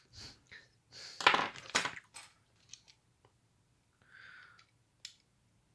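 Small plastic Mini 4WD parts clicking and rattling as they are picked up and fitted by hand, with a short cluster of clicks about a second in and a few light taps after.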